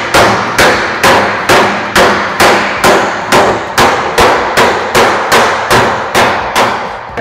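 Body hammer tapping steadily on the crumpled steel of a 1940 Willys hood, about two blows a second, each with a short metallic ring. The dolly is held lightly against the back of the panel, off the blows, so the crinkles are tapped back down without pinching the metal between hammer and dolly and stretching it.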